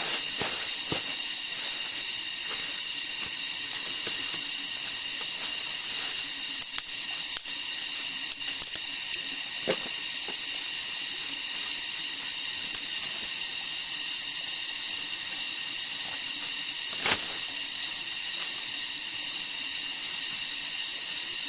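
Steady high-pitched drone of insects, with a few sharp knocks scattered through, the loudest about seventeen seconds in.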